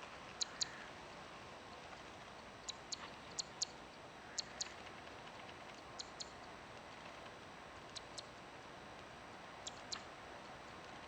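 Zitting cisticola (fan-tailed warbler) calling with short, sharp, high clicking notes in pairs, a pair every one to two seconds.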